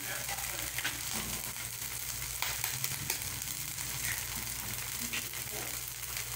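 Bottled butter (manteiga de garrafa) and garlic sizzling in a nonstick frying pan on a gas burner: a steady frying hiss with scattered small crackles.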